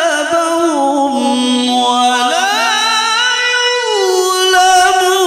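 A male qari reciting the Quran in a melodious chanted style, amplified through a handheld microphone. He holds long notes with ornamental wavering, glides up to a higher held note about two seconds in, and falls back near the end.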